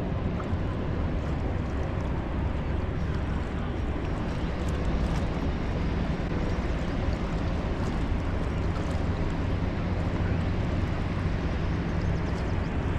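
Boat motor running steadily at an even pitch, over a constant rush of water and wind noise.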